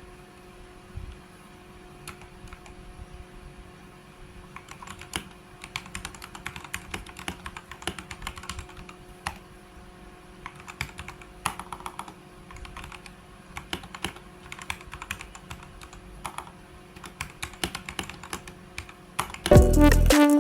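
Typing on a computer keyboard: irregular key clicks, sparse at first, then quicker and steadier after a few seconds. Loud background music cuts in near the end.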